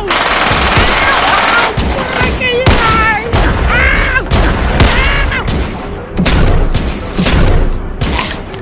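Rapid gunfire, many shots in quick succession, with a voice crying out several times among the shots.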